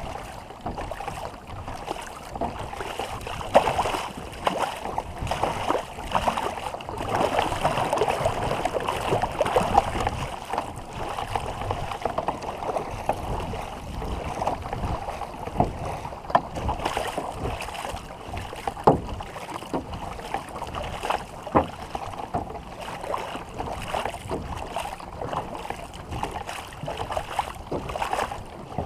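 War canoe paddles splashing and pulling through the water, with water washing around the boat and an occasional sharper splash or knock.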